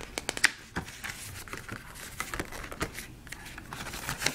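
Cardboard and paper iPad packaging being handled and opened: crinkling and rustling with many small scattered clicks and taps.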